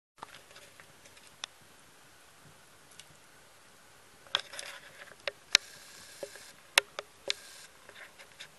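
Firewood burning in a masonry stove's firebox: irregular sharp crackles and pops, thicker in the second half, with brief stretches of hissing.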